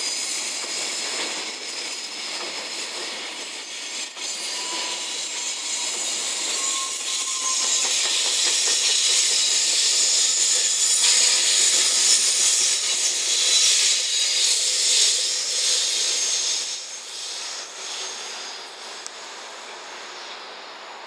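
Wheels of a long container freight train's flatcars rolling over the rails, a steady loud hissing rumble as the wagons pass. It fades away over the last few seconds as the end of the train goes by.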